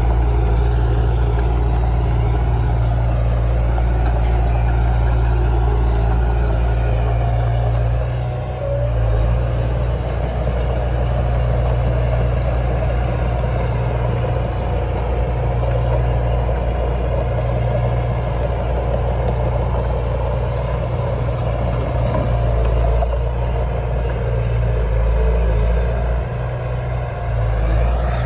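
Heavy diesel engine of earthmoving machinery running steadily with a deep drone. The level dips briefly about eight seconds in and again shortly before the end, as the load changes.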